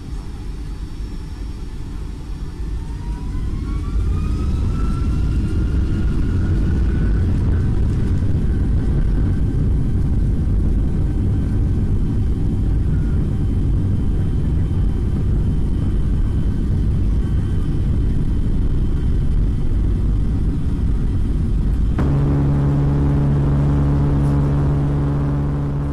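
Boeing 757 jet engine spooling up for the takeoff roll, heard from inside the cabin: a rising whine over a heavy, steady rumble. Near the end a sudden loud, low droning buzz sets in and then fades, the sound of the engine failing with damaged rotor blades.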